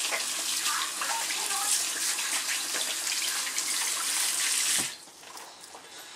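Kitchen tap running into a stainless steel sink, a steady rush of water that shuts off abruptly about five seconds in.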